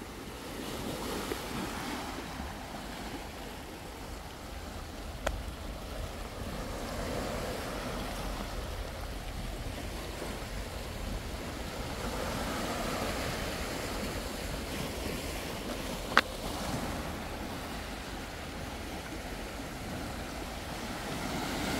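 Small waves washing and lapping over rocks and pebbles at the water's edge, a steady surf wash with some wind on the microphone. A faint click about 5 seconds in and a sharper click about 16 seconds in.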